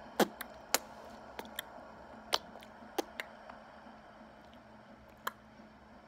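A baby making short, sharp mouth clicks, about nine of them spaced irregularly, the loudest in the first second.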